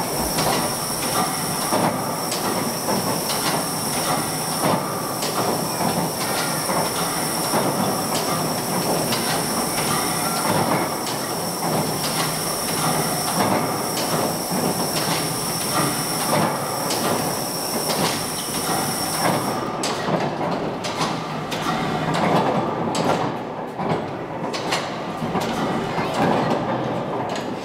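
Replica Puffing Billy steam locomotive running: a steady mechanical clatter with regular knocks from its beams, rods and gearing, about one to two a second. Over it, a high hiss with steady whistling tones cuts off suddenly about twenty seconds in.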